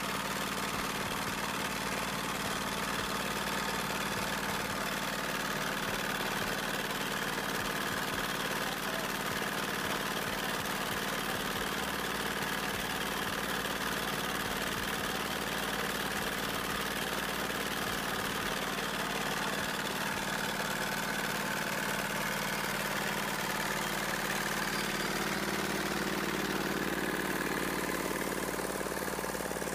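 An engine running steadily and evenly, with no change in pace.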